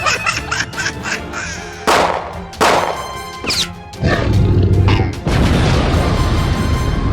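Background music mixed with cartoon-style sound effects: sudden crash-like hits about two seconds in and a quick whistling glide partway through.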